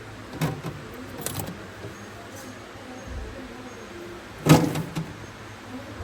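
A few knocks and clicks, the loudest a single thud about four and a half seconds in.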